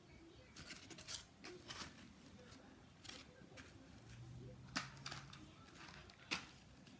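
Faint ASMR handling sounds: hands working small objects, giving a run of soft scratchy clicks and taps, with two sharper clicks near the end.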